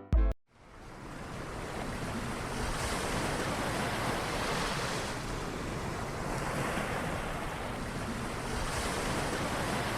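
Background music ends on a short bass hit right at the start, then waves washing on a shore fade in and run on steadily, swelling gently every few seconds.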